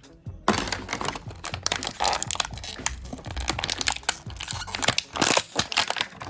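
Plastic packaging crinkling and clicking as it is handled, over background music.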